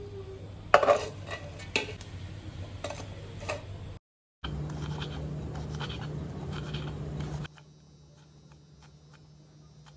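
Kitchen prep sounds: utensils and dishes clicking, knocking and scraping over a low steady hum, in short clips that cut off abruptly, with a brief dropout about four seconds in and a much quieter stretch near the end.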